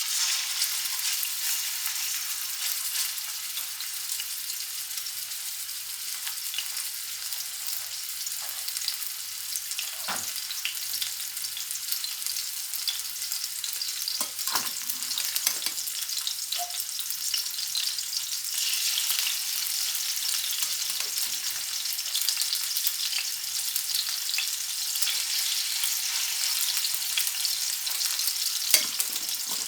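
Seasoned fish pieces sizzling steadily as they fry in hot vegetable oil in a pot. A few short knocks come now and then.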